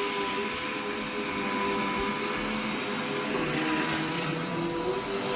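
Vacuum cleaner running steadily without strain. Its motor pitch wavers and dips from about three and a half seconds in, with a brief burst of brighter hiss at the same time.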